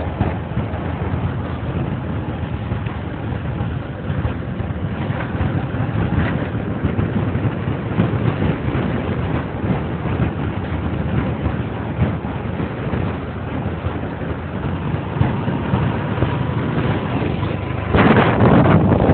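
Motorcycle running along a road while riding, with wind rumbling over the microphone; the wind noise grows louder near the end.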